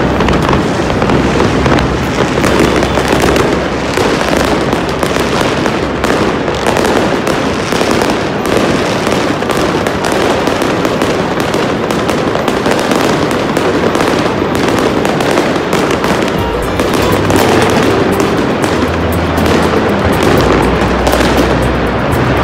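Dense New Year's Eve fireworks: many bangs and crackles overlapping one another without pause.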